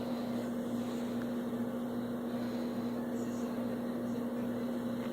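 Steady machine hum at one constant pitch, with a lower throb pulsing evenly about twice a second.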